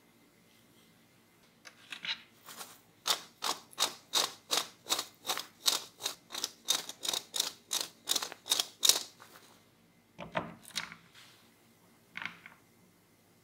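Corn-starch-dusted potato sticks being shaken in a stainless wire-mesh basket: a rhythmic rattle of the sticks against the mesh, about two to three shakes a second for several seconds. A single duller knock follows a second later.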